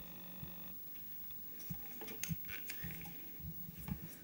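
Faint small clicks and rustles as the card robot arm and its gripper are handled. A faint steady hum stops under a second in.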